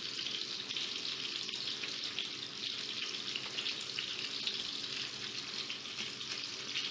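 Steady hiss with a faint low hum underneath, even throughout, with no distinct knocks or events.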